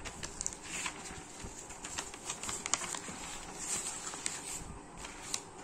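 Pages of a paper textbook being turned and handled: soft rustling with scattered light clicks and taps.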